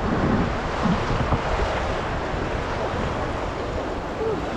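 Rushing river water around a raft on the Ganges, a steady wash with wind buffeting the microphone. It is a little louder in the first second.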